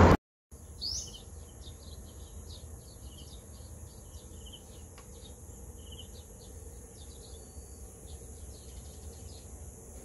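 Birds chirping in short, scattered calls, one louder call about a second in, over a steady high-pitched drone of insects, typical of tropical garden ambience. It begins a moment after a brief silence.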